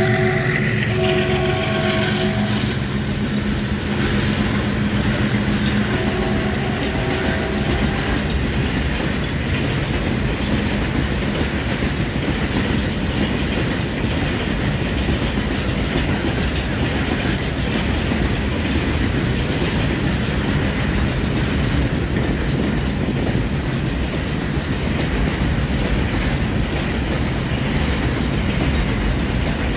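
Double-stack container wagons of a freight train rolling past, with a steady rumble and clatter of wheels on the rails. The WDG-4G diesel locomotive's multi-tone horn fades out in the first couple of seconds and sounds briefly again about seven seconds in.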